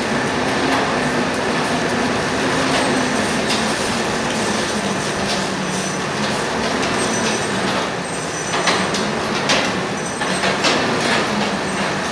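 Ox-driven mill gear and power takeoff shaft running steadily with a continuous mechanical rattle and a faint steady whine, with a few sharper knocks about nine to eleven seconds in.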